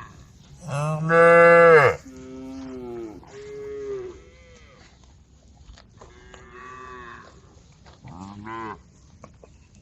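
Cows mooing in a series of calls. The loudest is a long moo about a second in, followed by several shorter, quieter moos and a brief one near the end.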